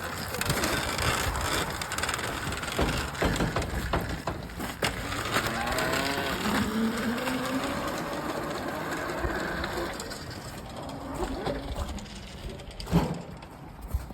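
Dirt bike riding over rough ground, with tyres crunching and the bike's pitch rising and falling; a sharp knock near the end.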